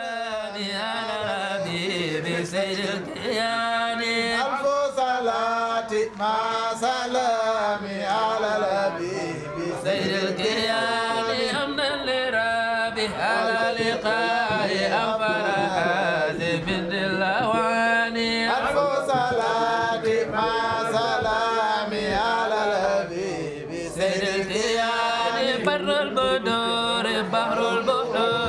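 Islamic devotional chant: a voice sings a winding melody over a steady held low tone, without a break.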